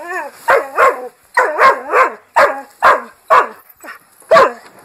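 A dog barking over and over, in short sharp barks at about two a second.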